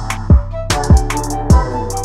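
Background music: a beat of deep kick drums that drop in pitch, three of them, with crisp hi-hat ticks over a held bass line.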